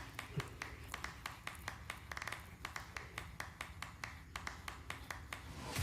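Rapid, irregular sharp clicks or taps, several a second, over a faint low hum.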